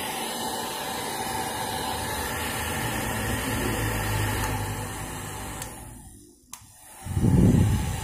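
Small 500-watt Yazuho N-1290 hair dryer running steadily on its hot setting, then dying away about six seconds in, with a single click. A loud low rumble follows near the end.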